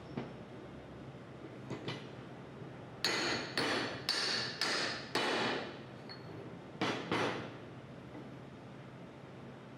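Hammer blows driving new seals into a gear pump's housing: a couple of light taps, then a run of five sharp metallic strikes about half a second apart, each ringing briefly, and two more strikes shortly after.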